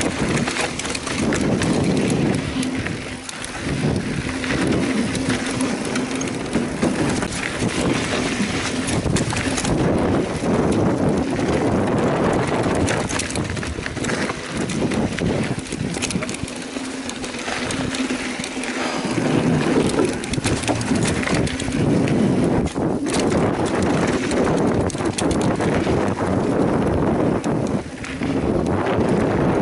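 Mountain bike riding down a rough trail: tyres on dirt and rock, with frequent rattles and knocks from the bike, and wind noise on the microphone.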